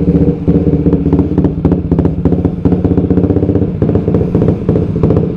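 Suzuki GSX-R150's single-cylinder engine idling steadily through a WRX GP5 full-system aftermarket exhaust, loud, with a fierce, popping exhaust note.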